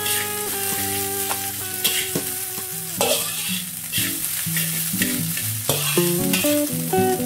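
A slotted metal spatula scrapes and turns rice around an aluminium wok, with a sizzle of frying under it. The scraping strokes come about once a second.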